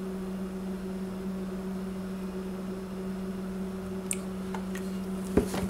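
A steady low hum holding one pitch, with a few faint light clicks and a soft knock near the end.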